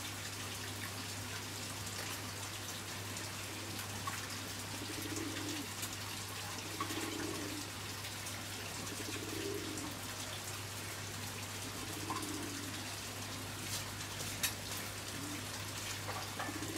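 Low cooing calls, about five of them, each under a second long and spaced two to three seconds apart, over a steady hiss and a low hum.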